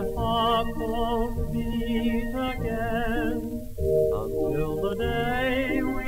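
A 1932 Edison Bell Winner 78 rpm record playing a theatre orchestra's concert arrangement, with a male voice singing long notes with a strong vibrato over the orchestra, in phrases broken twice.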